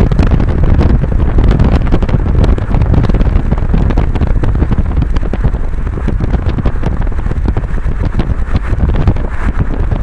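Strong wind buffeting the microphone: a loud, continuous rumbling rush that gusts unevenly.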